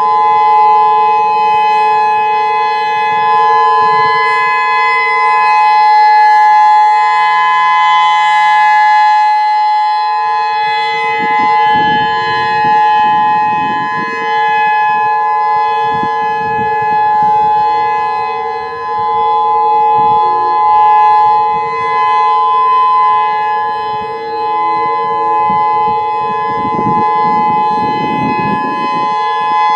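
Federal Signal EOWS 612 electronic tornado siren sounding its Alert signal: one loud, steady tone that holds its pitch without rising or falling.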